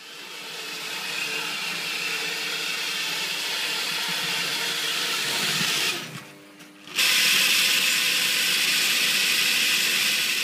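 Lionel O-gauge model train running on tinplate track: a steady motor whir with rolling hiss, most likely with the motor-driven 3927 track cleaning car in the consist. It drops away for about a second around six seconds in, then comes back louder.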